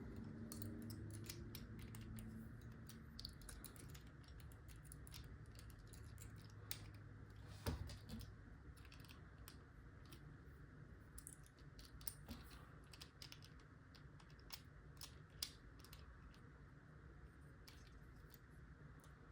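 Faint, irregular small clicks and scrapes of lock picks working inside a padlock's keyway.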